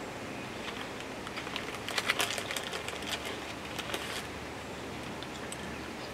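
Crackling of a crunchy snack being handled and eaten: a run of sharp crackles, loudest about two seconds in, dying away after about four seconds.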